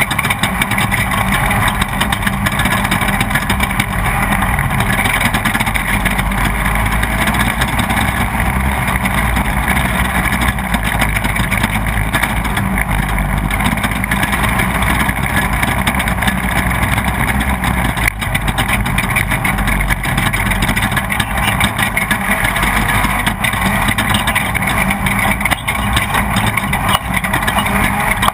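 Off-road race vehicle's engine running continuously at racing speed over rough ground, heard onboard under a dense, steady rush of noise.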